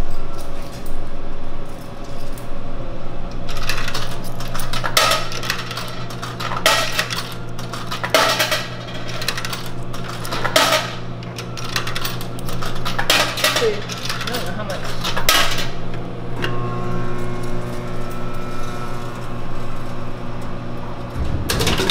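Coins being fed into a Pepsi drink vending machine, clinking and clicking through its coin mechanism in a run of short metallic sounds, over a steady low hum.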